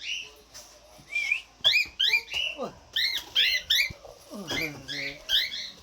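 Cockatiels calling: a rapid string of short, high, arching whistled chirps, several birds overlapping.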